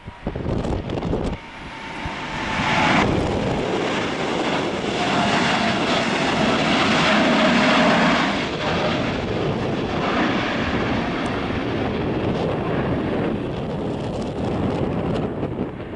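Boeing 787-8 twin-engine jet at takeoff power: a loud jet roar that builds over the first few seconds and peaks about halfway, with a whine falling in pitch as the aircraft passes, then a steady rumble. Wind buffets the microphone briefly at the start.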